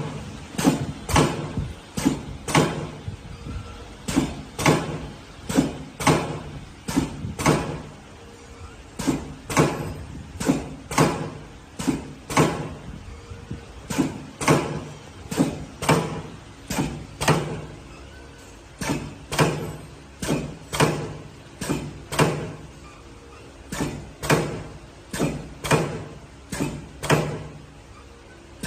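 Automatic pipe-cutting machine running continuously, chopping tubing with sharp mechanical clacks about one to two a second, often in quick pairs, over a faint low hum.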